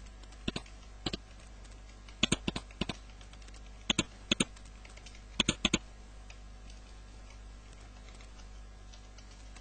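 Computer keyboard keys clicking in short bunches of a few keystrokes each as names are typed, stopping about six seconds in.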